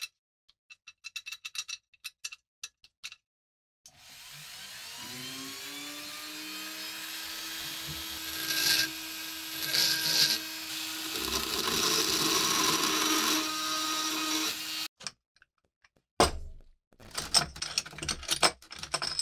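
Handheld rotary tool spinning up with a rising whine and then running steadily as its bit grinds away a rivet head, with sharper grinding bursts about halfway through. The motor stops abruptly, and scattered metal clicks and knocks come before and after it.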